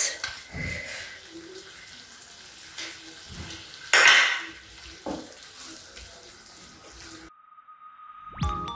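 Kitchen sounds at a pan of beef stew: light clinks and scrapes of a wooden spoon in a non-stick frying pan over a faint sizzle, with one louder clatter about four seconds in. Near the end the sound cuts out and a quick whoosh sweeps up into music.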